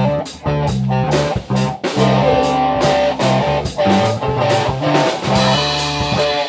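Rock band jamming: electric guitars picking a repeating riff over bass guitar and a drum kit keeping a steady beat.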